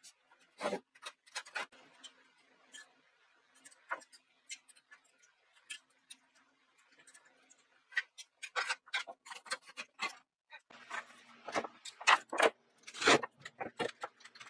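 Irregular clicks and knocks of objects being handled, sparse at first and coming thick and fast from about eight seconds in, over a faint steady hum.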